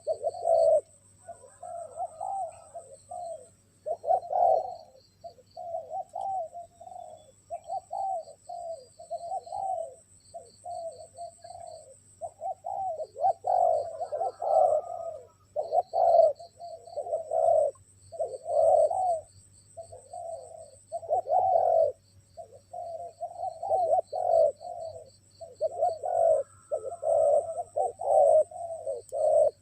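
Spotted doves cooing, one phrase after another with hardly a pause, as a decoy and a wild dove call back and forth. A faint high steady whine and a rapid ticking sound on behind them.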